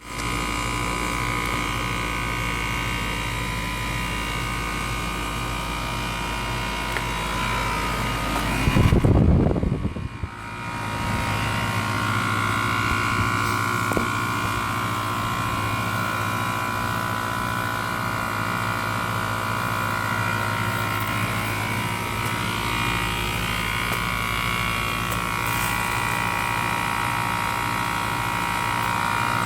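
A steady machine hum made of several held tones, with a loud low rumble about nine seconds in.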